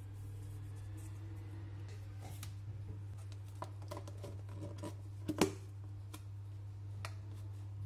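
Plastic food container handled and its plastic lid set on and pressed down: a scatter of light clicks and knocks, the loudest about five seconds in, over a steady low hum.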